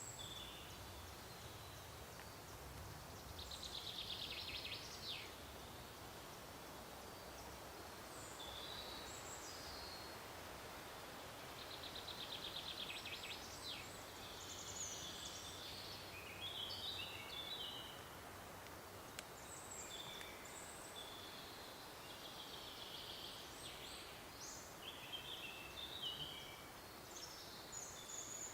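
Evening forest ambience: songbirds singing on and off in short chirps, trills and phrases, over a faint steady background hiss.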